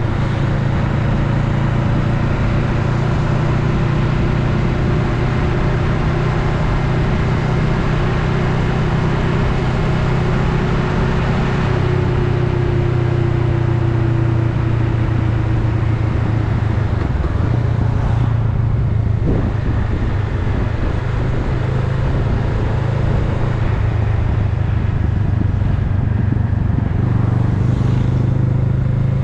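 Honda Rebel 500's parallel-twin engine running under way, with wind and road noise over the microphone. The engine note eases down slowly through the first half, changes briefly a little past the middle, and rises again near the end.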